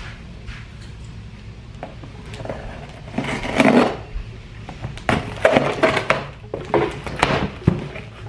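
A knife slitting the packing tape on a cardboard shipping box, then the cardboard flaps being pulled open. A long scrape about three seconds in is the loudest part, followed by a run of sharp knocks and scrapes.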